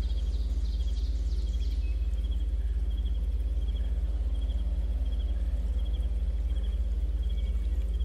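Insects chirping in short repeated pulses, about two a second, over a steady low hum.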